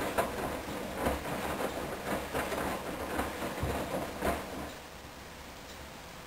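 Hoover DYN10124DP front-loading washing machine drum tumbling a full load of sheets in the main wash, with repeated thumps and swishes. About four and a half seconds in, the drum stops and the sound drops to a quiet steady background.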